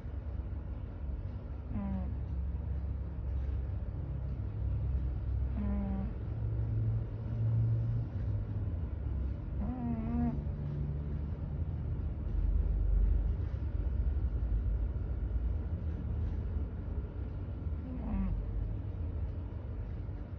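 A sleeping cat snoring: a steady low rumble, with a wavering, falling whistle-like tone on each breath about every four seconds.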